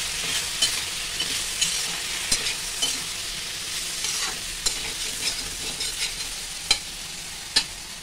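Chana dal bhakosa pieces sizzling in spiced oil in an iron kadhai while a metal spatula stirs and scrapes them, with sharp clinks of spatula on pan every second or so; the two loudest clinks come near the end.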